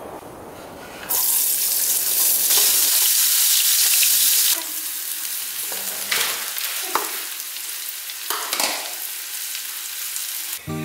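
Chopped shallots and chillies hitting hot oil in a nonstick frying pan: a loud sizzle starts about a second in and eases off after a few seconds. Diced cubes are then tipped in and stirred with a wooden spatula, giving a lower sizzle with a few short scrapes.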